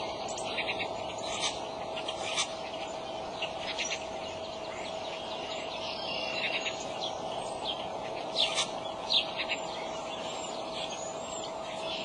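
Small wild birds chirping and calling, several short chirps a second, with two louder chirps about three-quarters of the way through, over a steady faint hum and hiss.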